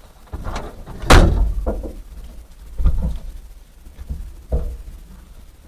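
A handful of short, sharp thumps or knocks, the loudest about a second in, with quieter ones spread through the rest.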